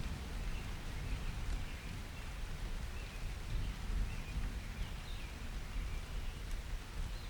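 Thunderstorm rain falling steadily, with a low rumble underneath and faint short high chirps now and then.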